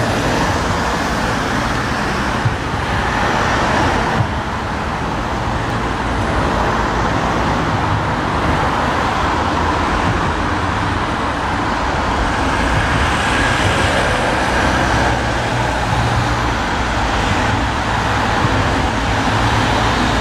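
Steady road traffic noise as a convoy of police vans and an ambulance drives past: engines running and tyres on asphalt, with no siren.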